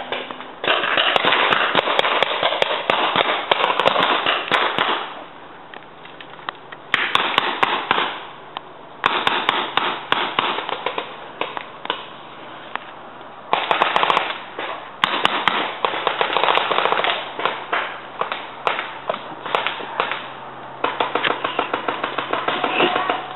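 Paintball markers firing in rapid volleys, several stretches of dense popping a few seconds long with short quieter gaps between.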